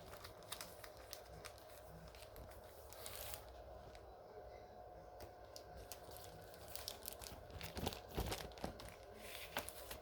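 Faint crinkling and rustling of plastic comic book bags being handled, with small scattered clicks.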